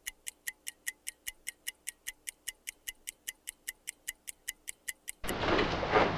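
Rapid, even ticking, about five ticks a second. It stops suddenly about five seconds in, giving way to louder room noise with a few knocks.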